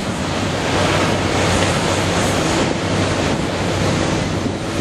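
Cat 320D L excavator's six-cylinder diesel engine running steadily while the bucket digs sand, under a loud, even wash of noise that swells and eases.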